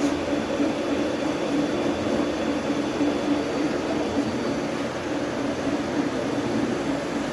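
Slotting machine running with a steady mechanical hum from its motor and drive as the rotary table is traversed.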